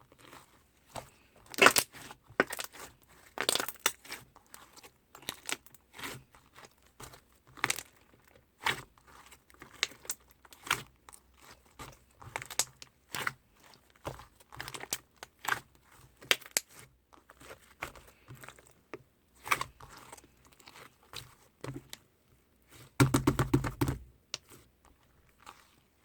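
Slime being squeezed, stretched and folded by hand: a very sticky slime being mixed with one that tears apart, giving irregular sticky pops, clicks and tearing crackles. There is a denser, louder run of crackling and handling near the end.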